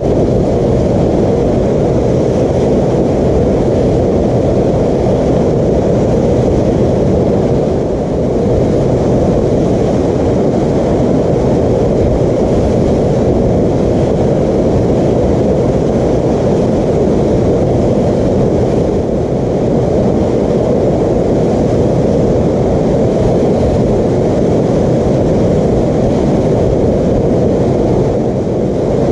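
Whitewater river rapid and its standing wave rushing loudly and steadily, a deep, dense rush of water.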